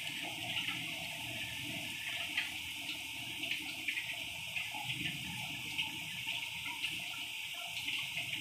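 A steady hiss, with faint light clicks of a steel spoon against a small bowl and the rice pot as milk is spooned over cooked rice.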